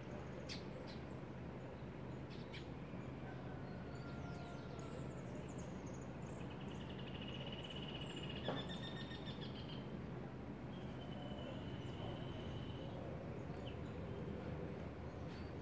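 Small birds chirping and calling in the trees over a steady low background rumble, with a run of rapid trilled calls from about six to ten seconds in and another shorter one around twelve seconds. A single soft knock about eight and a half seconds in.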